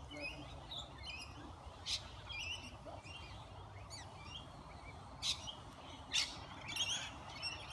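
Lorikeets and other birds at a feeding spot chirping and chattering, with three short, sharp screeches about two, five and six seconds in.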